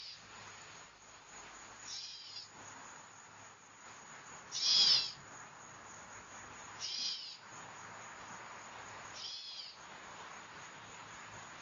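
A hawk calling: a short, high-pitched cry repeated about every two and a half seconds, five times, the one near the middle loudest.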